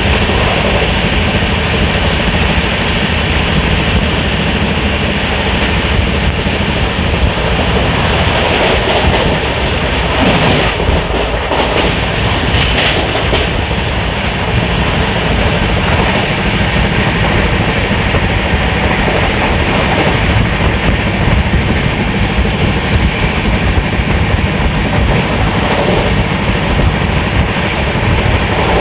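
Express passenger train running at speed, heard from an open coach doorway: a loud, steady rumble and rush of the wheels on the rails.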